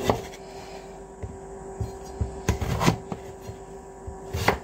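A chef's knife cutting through yellow squash and knocking down onto a wooden cutting board, a handful of irregular chops, over a steady background hum.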